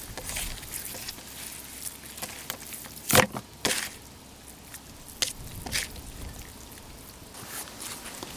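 A few sharp knocks and clacks over a steady background hiss, the loudest about three seconds in, followed closely by a second and then two smaller ones a couple of seconds later.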